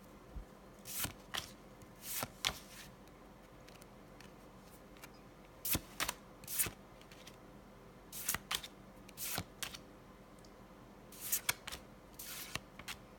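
Pokémon trading cards sliding against each other as they are flipped through one at a time: short swishes, often two or three close together, with gaps of a second or more between them.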